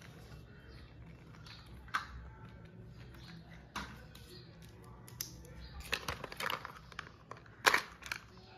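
Small clicks and knocks of a plastic toy RC jeep being handled, with a screwdriver working the screw of its battery cover near the end. A few scattered clicks at first, coming more often in the last few seconds, the loudest close to the end.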